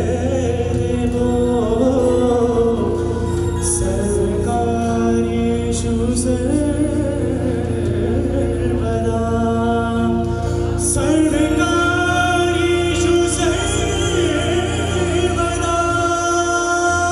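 A man singing a song through a handheld stage microphone over musical accompaniment, with long held, wavering notes.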